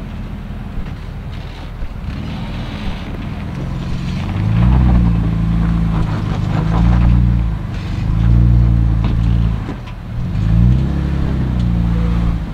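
Jeep Wrangler JK's engine pulling slowly over rock, steady at first, then revved in three or four surges that rise and fall in pitch as the driver gives it throttle to climb.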